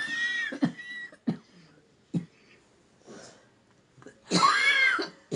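Coughing: a long, loud cough with a squeaky pitched tone in it at the start, a few short sharp coughs, then another long cough about four seconds in.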